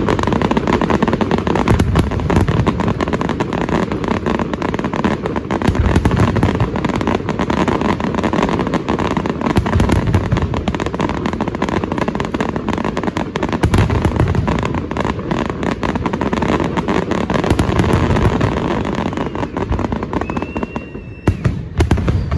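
Aerial fireworks display: a continuous barrage of shell bursts, deep booms swelling every few seconds under dense crackling, easing off slightly near the end.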